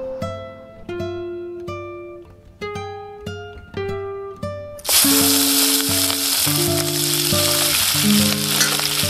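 Plucked-string background music of single picked notes; about five seconds in, a loud sizzle starts as whole shrimp fry in hot oil in a pan, and the music carries on underneath.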